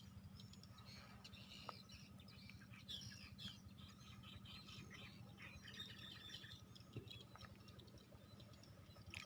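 Faint chirping of small birds, many short calls throughout, over a low steady hum.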